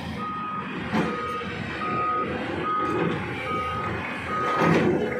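Reversing alarm on heavy construction machinery beeping a steady high tone about once a second, over the low running of a diesel engine. A sharp click about a second in, and a brief louder rush of noise near the end.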